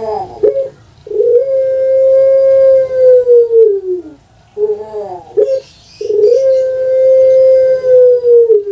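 Puter pelung, a long-voiced Barbary dove (Streptopelia risoria), cooing twice. Each call is a short broken opening note followed by one long held coo of about three seconds that falls in pitch at its end.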